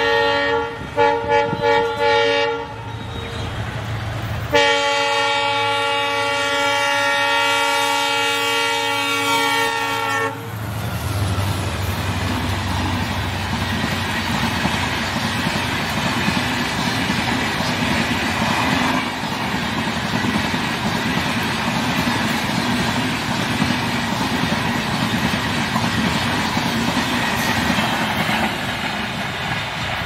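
WDP-4D diesel locomotive horn: a few short blasts in the first couple of seconds, then one long blast from about four to ten seconds in. Then the steady rumble and clatter of the Rajdhani Express coaches running through at speed without stopping.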